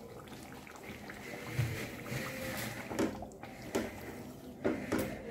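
Wooden spatula stirring cream into thick gravy in an aluminium pot: wet, sloshing strokes that scrape the pot, several in the second half, over a faint steady hiss.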